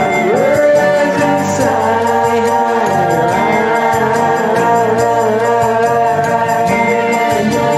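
Song music: steady held chords with a voice sliding up and down in pitch, without clear words.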